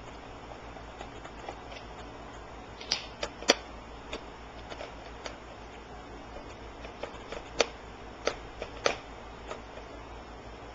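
Irregular clicks and light knocks from HP dv7 laptop parts being handled and pulled apart during disassembly, over a low steady hum. The loudest knocks come about three and a half seconds in and again near seven and a half and nine seconds.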